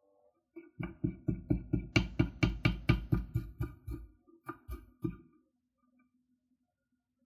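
Kitchen knife chopping fresh dill on a wooden cutting board: a quick run of knocks, about four a second, that spaces out and stops about five seconds in.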